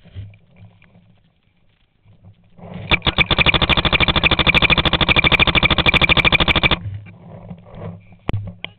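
Paintball marker firing in a rapid, even stream, about a dozen shots a second for roughly four seconds, close to the microphone. Two separate sharp cracks follow near the end.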